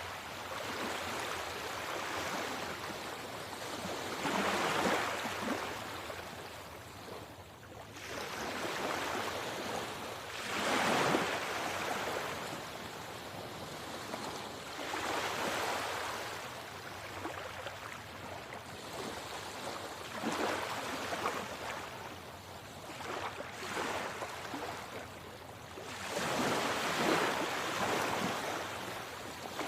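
Sea waves washing onto the shore, swelling and falling away every few seconds in a steady, calm rhythm.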